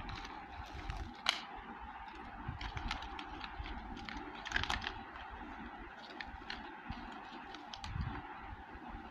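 Metallised foil anti-static bags and a plastic mailer being handled on a table: irregular crinkling and sharp little clicks and taps, with a busier flurry of crackling about halfway through.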